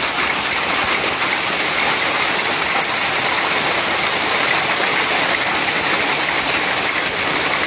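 Hailstorm: a dense, steady patter of hailstones falling onto the ground and surrounding surfaces.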